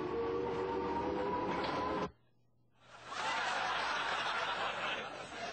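A whine slowly rising in pitch that cuts off abruptly. After a short silence, about three seconds in, comes a loud, dense crashing clatter as a forklift truck smashes through a wall of stacked boxes, easing off near the end.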